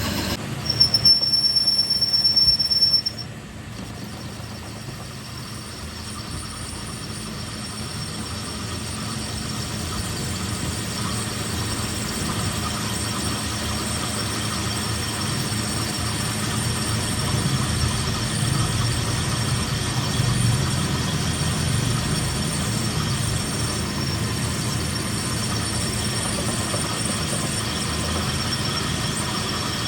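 A piercing high-pitched squeal for about two and a half seconds near the start, then the steady noise of a workshop machine running, slowly growing louder.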